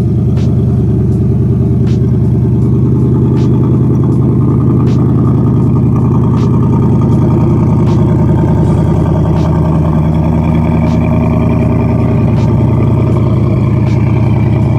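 Ford Mustang GT's 5.0 Coyote V8 running steadily through its newly repaired, welded exhaust; its pitch creeps up slightly in the second half. A faint tick comes through a little more than once a second.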